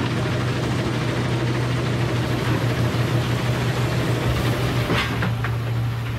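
Heavy diesel machinery of a gold dredge barge running steadily: the wash plant and a Caterpillar excavator, with a low engine hum. Wet gravel pours from the excavator bucket into the wash plant hopper. A sharp knock comes about five seconds in, and the rushing eases after it.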